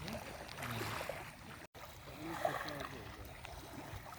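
Faint voices of people talking in the background over a steady outdoor hiss; the audio cuts out for a split second near the middle.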